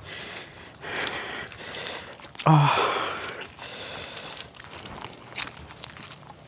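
A person breathing hard while climbing a steep trail, several heavy breaths in and out, the strongest about two and a half seconds in, starting with a short voiced grunt.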